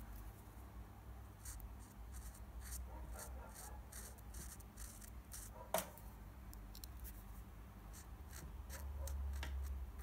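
Felt-tip marker rubbing along the edge of a tiny paper licence plate: a run of short, faint scratchy strokes, with one sharper click about six seconds in.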